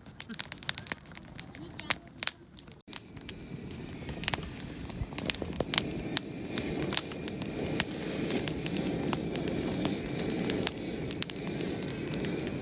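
Wood campfire crackling and popping with many sharp snaps. From about a third of the way in, a steady rushing sound builds beneath the crackles and grows louder.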